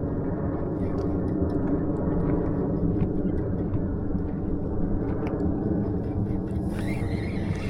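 Boat motor running steadily with a low, even hum, and a short rush of hiss near the end.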